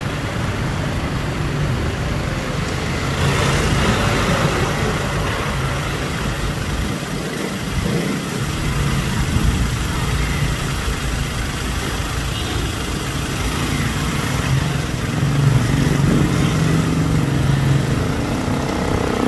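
Small motorcycle engines running on a street: a motorcycle tricycle passes a few seconds in, and the single-cylinder-style engine note of a monowheel motorcycle grows louder near the end as it rolls out onto the road.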